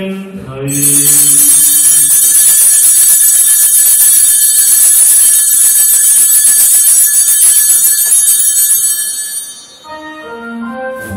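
A cluster of small altar bells shaken continuously for about nine seconds, loud and bright. This is the bell-ringing that marks the elevation at the consecration of the Mass. A chanted line dies away at the start, and soft organ-like music comes in near the end.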